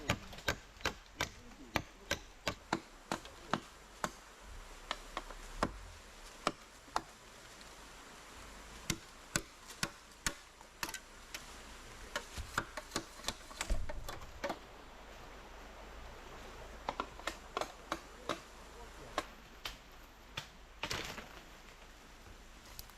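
Irregular series of sharp knocks or taps, several a second in places and broken by pauses, over a faint steady hiss. A brief scraping rustle comes near the end.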